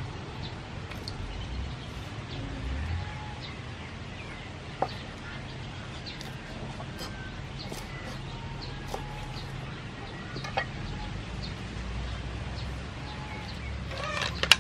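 Chickens clucking now and then over a steady low background, with a few sharp cleaver strokes on a wooden cutting board as kaffir lime leaves are cut. Near the end comes a brief clatter as the leaves go into a steel pot of sea snail shells.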